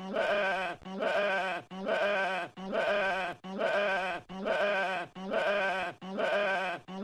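Sheep bleating over and over: the same quavering "baa" repeats at an even pace, a little faster than one a second, with short gaps between.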